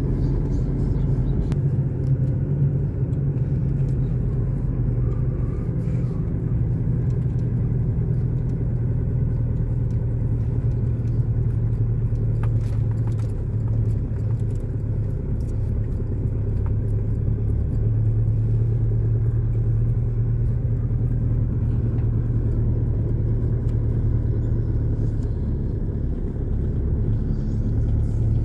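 Car interior noise while driving on a dirt road: a steady low rumble of engine and tyres, with a few faint clicks and rattles.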